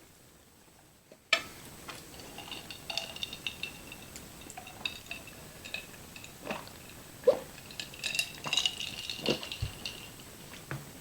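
Cutlery clinking and scraping against a plate in a run of small, ringing clinks. They begin about a second in with a sharp knock.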